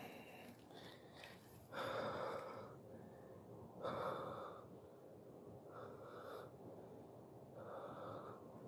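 A person breathing heavily close to the microphone: four audible breaths, each under a second, about two seconds apart.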